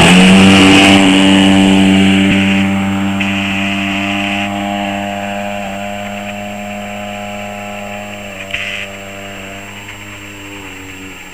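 Radio-controlled Extra 300 model plane's engine running at high throttle through takeoff and climb-out, one steady pitch that fades slowly as the plane flies away, with a brief louder rasp about eight and a half seconds in.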